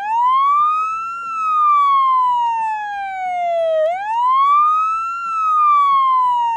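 Electronic siren of a Fireman Sam Venus toy rescue truck wailing. The pitch rises quickly, then falls slowly over a few seconds, and the wail starts again about four seconds in.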